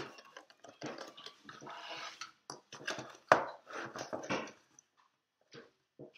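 Cardboard board-game box and its insert being handled: scraping, rustling and light knocks of card, with one sharp knock a little over three seconds in, then it goes mostly quiet.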